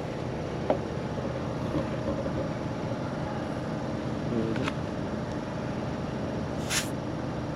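Steady mechanical hum with two light clicks, then a short hiss of air near the end from the tire's valve stem as its pressure is checked.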